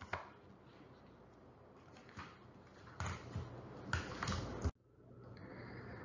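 Faint room noise in a pause of a recorded lecture, with a few soft clicks and a short cluster of rustles and knocks. It cuts off suddenly a little before the end, where an edit splices in a different, steadier faint hiss.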